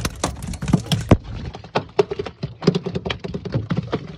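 Albacore tuna thrashing on a boat deck, its tail and body beating in a fast, uneven patter of taps and knocks.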